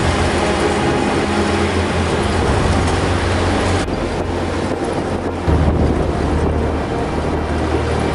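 Motor vehicles driving on a road: a steady low engine drone under broad road noise, the drone shifting in pitch about five and a half seconds in.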